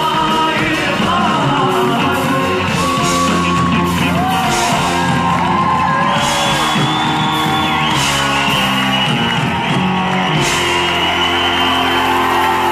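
A live band playing a song: a lead singer over drums, keyboards and bass guitar, loud and continuous.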